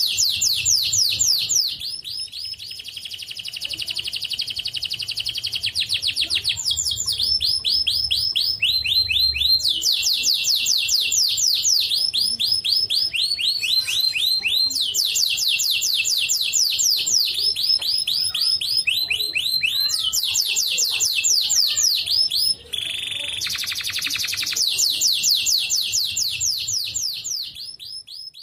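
White domestic canary singing a long, almost unbroken song of fast trilled rolls, each a rapid run of the same high note repeated many times a second, moving from one roll to the next every few seconds. There is one brief break about three-quarters of the way through, and the song fades out at the very end.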